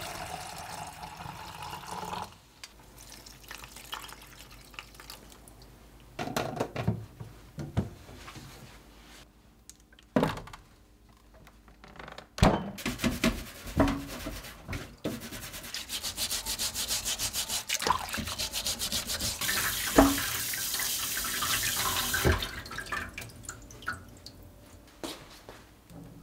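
Tap water running into a plastic jar in a stainless steel sink for the first couple of seconds, then a bristle scrub brush scrubbing a radish in a stainless steel basin with quick, even strokes, broken by a few sharp knocks.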